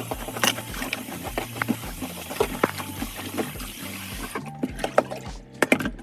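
Background music with a steady beat and bass line, under many irregular sharp clicks and small splashy taps of liquid.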